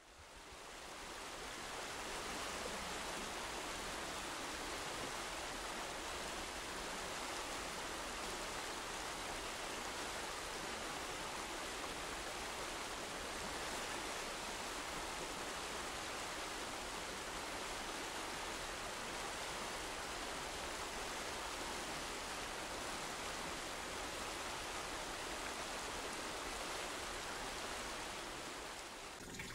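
Shallow mountain river rushing over gravel and stones: a steady, even rushing that fades in over the first couple of seconds.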